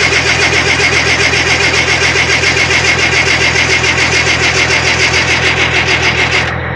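Starter motor cranking a box truck's diesel engine in a fast, even chugging rhythm without it catching, then cutting off near the end. The helpers blame the failure to start on the diesel injection pump, where sometimes a rack inside it sticks.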